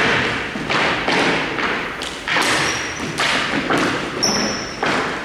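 Ice hockey skate blades scraping the ice in quick repeated strides, a hissing scrape about every two-thirds of a second, with a couple of short high squeaks.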